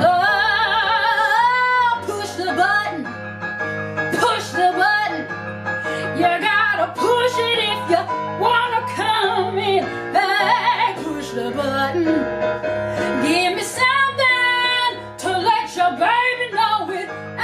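Woman singing a show tune with wide vibrato over a band with a steady bass line. She holds a long wavering note at the start, then sings short phrases and quick runs.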